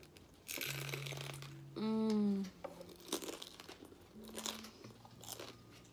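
Bite into a crispy fried flauta crunching for about a second, then a short hummed "mmm", the loudest moment, followed by irregular crunching as the fried tortilla is chewed.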